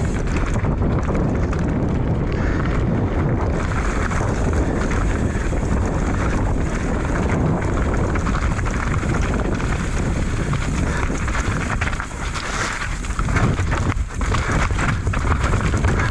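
Wind rushing over a rider-worn action camera's microphone during a fast mountain bike descent, mixed with the steady noise of tyres on dirt and rock. Several sharp knocks and rattles from the bike hitting rough ground near the end.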